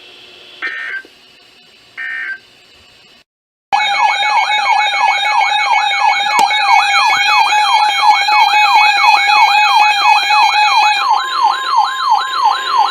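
Two short electronic data-tone bursts of an Emergency Alert System code, then a moment of silence. After that comes a loud electronic siren-like weather-alert alarm, wailing up and down about three times a second over steady tones. Near the end a single steady alert tone, the NOAA Weather Radio warning tone, holds under the wail as the next warning is announced.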